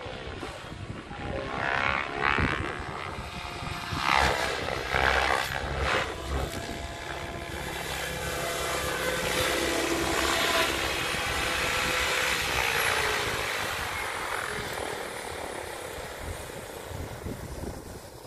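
Electric 3D RC helicopter with an Egodrift motor in flight: the rotor blades swish and the motor whines, swelling loudly again and again as it throws 3D manoeuvres and passes close. The sound fades over the last few seconds as it comes down.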